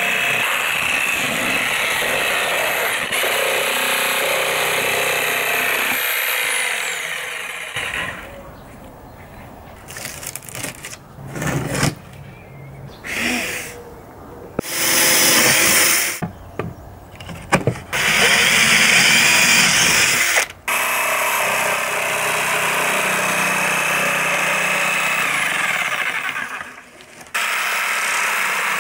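Corded electric jigsaw cutting through chipboard on a circle-cutting jig, running steadily for the first seven seconds or so. After a quieter stretch of knocks and handling, it runs again in several short bursts and then a longer steady stretch, with a brief break near the end.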